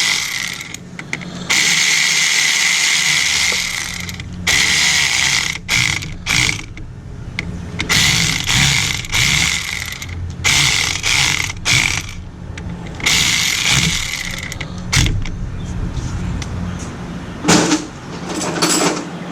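A ratchet tightening the fitting of a power steering pressure hose, run in repeated stop-start bursts.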